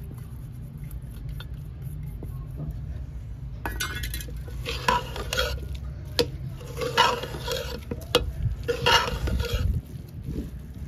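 A spoon stirring and scraping the potato samosa filling in a cooking pot, with repeated scraping strokes and clinks of the spoon against the pot starting about a third of the way in. A steady low rumble runs underneath.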